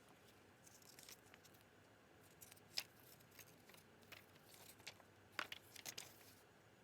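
Faint handling of packaging while a mini handheld fan is unboxed: rustling and crinkling, with a few sharp clicks, the loudest about three seconds in and twice more about five and a half seconds in.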